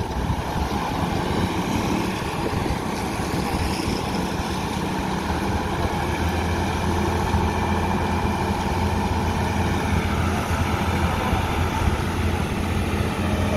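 Diesel engine of a Fuso boom truck running steadily while it powers the truck's crane to hoist a load. Its low hum grows stronger about five seconds in.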